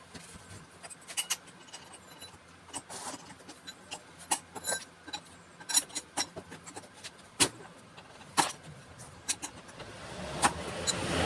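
Irregular metallic clicks and clinks of a screwdriver working at a scooter's rear drum brake cable adjuster and brake arm, with two sharper clicks past the middle. Near the end a rustling noise swells up.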